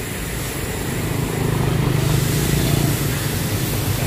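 Street traffic with a motorbike engine growing louder from about a second and a half in as it comes up and passes.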